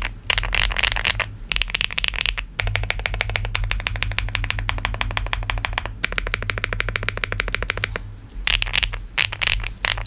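Typing on an ELECFOX LINKY 87 mechanical keyboard with Busun Taichi switches and PBT Cherry-profile keycaps in a plastic case, giving deep, thocky keystrokes. Bursts of keystrokes with short pauses open and close the passage, and a long run of very fast, even keystrokes fills the middle.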